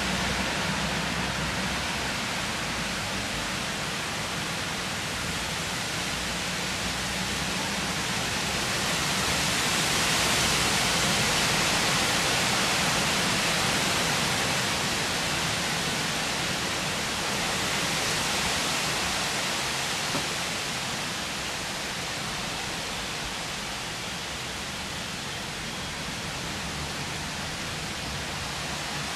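Storm wind rushing through the leafy crowns of oak trees, a steady noise that swells in a gust about a third of the way through, swells again a little later, then eases off.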